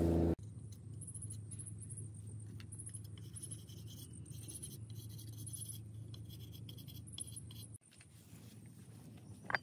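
A knife scraping and whittling a thin bamboo stick: faint, irregular scratchy strokes, with one sharp tap near the end.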